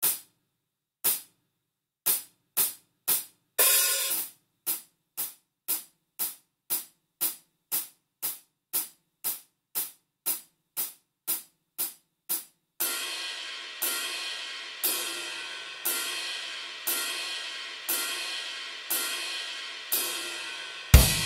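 Drum kit in isolation: sharp hi-hat ticks about two a second, then from about halfway cymbal crashes ringing out about once a second over a faint bass note. Near the end a loud hit with a kick drum brings in the full kit.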